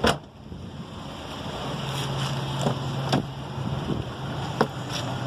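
A single heavy thump right at the start as the Honda Pilot's rear liftgate is shut, followed by a steady low hum with two or three light clicks and wind on the microphone.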